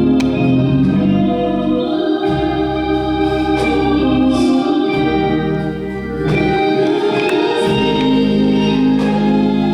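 Organ music: sustained chords held over a bass line that changes every second or two.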